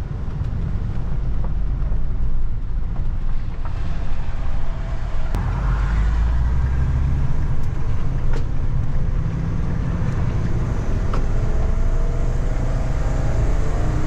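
Class C motorhome pulling away and driving while towing a Jeep Wrangler, heard from the cab: a steady low engine and road rumble that grows louder over the first couple of seconds, with a few clicks and knocks, and the engine note rising near the end as it accelerates.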